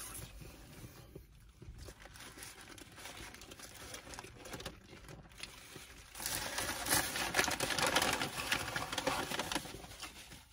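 Paper fast-food wrapper crinkling and rustling as it is handled, a dense crackle that grows much louder about six seconds in and eases off near the end.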